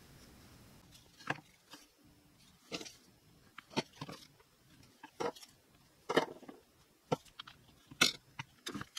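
Plastic spring clamps being squeezed open and snapped onto thin wooden strips: a series of sharp clicks and clacks, about a dozen, irregularly spaced, starting about a second in.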